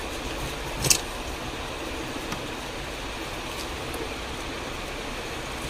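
Steady hiss of background noise in a shop, with one sharp click about a second in and a faint tick a little later.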